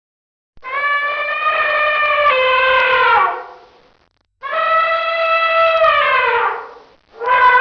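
Elephant trumpeting: two long, brassy calls, each held steady and then sliding down in pitch as it fades, with a third starting near the end.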